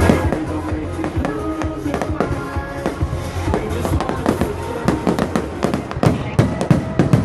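Fireworks display: rapid bangs and crackles that grow denser about six seconds in, with music playing alongside.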